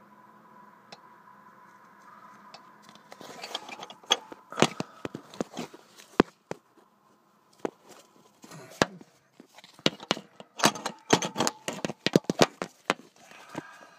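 Irregular sharp metallic clicks, knocks and scrapes of car parts and tools being handled during clutch work, likely the clutch release fork being worked onto its bearing. They start about three seconds in and come thickest in the last few seconds.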